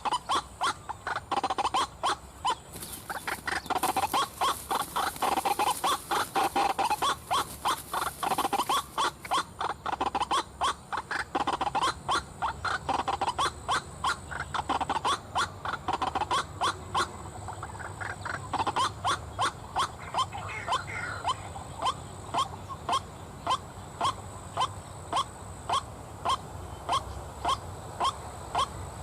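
White-breasted waterhen calls, a repeated croaking "kruak-kruak", played as an mp3 lure call. The calls come thick and fast at first, then settle into an even rhythm of about two a second from about halfway through.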